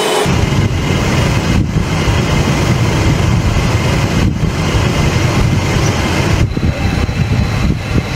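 Twin jet engines of an F-22 Raptor (Pratt & Whitney F119 turbofans) running loud on the runway: a heavy, steady rumble, broken by a few brief dropouts.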